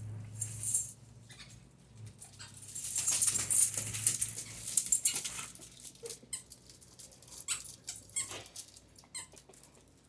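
HGB squeaky dog toys being squeaked over and over by dogs: a dense run of quick high squeaks in the middle, then scattered single squeaks.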